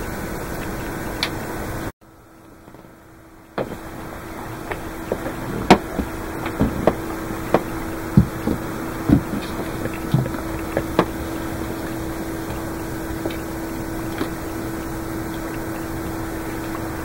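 A run of sharp taps and knocks from a golden retriever puppy and a kitten playing with a cat teaser around a metal wire rack, coming thickest from about five to eleven seconds in, over a steady low hum that drops out briefly about two seconds in.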